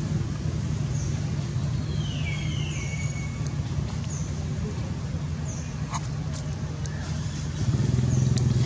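Steady low motor hum, like a vehicle engine or road traffic, growing louder near the end. Short high chirps repeat every second or so, with one longer falling whistle about two seconds in.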